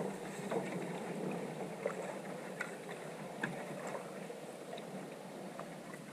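Solo canoe being paddled through calm water: the paddle dips and pulls, with small splashes and drips at irregular moments over a steady wash of water.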